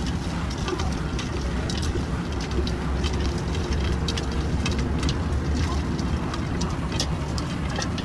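Light clicks and rustling from a hand mixing a crumbly masala mixture in a steel bowl, over a steady low rumble of street traffic.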